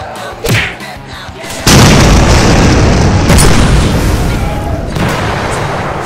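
A loud dubbed-in boom sound effect hits suddenly about a second and a half in and rumbles on, fading slowly. A short, sharper pop comes shortly before it.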